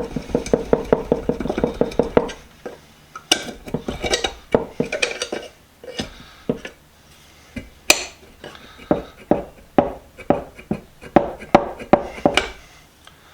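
Hammer striking metal on metal, driving the rust-seized jaw out of a Craftsman pipe wrench's cast body: a quick run of light taps at first, then single sharp blows about a second apart.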